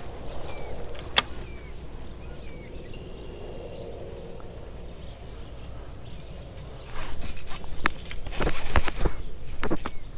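Shimano SLX fishing reel being cranked, its gears giving a dense, irregular clicking rattle that starts about two-thirds of the way through. Before that only quiet outdoor background, with one sharp click about a second in.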